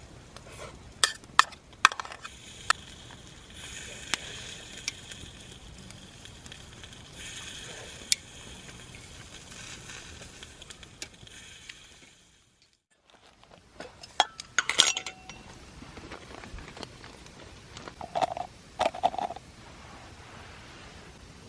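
Tableware clinking during a meal: scattered sharp clicks and clinks of utensils against bowls and pots over faint background noise. There is a short break to near silence about halfway through, then more clinks, with a few short ringing ones near the end.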